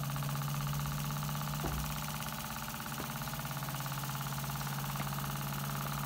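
Two small hot-air Stirling engines running, a homemade walking-beam engine and a small brass one: a fast, even mechanical chatter over a steady hum, with a couple of light clicks.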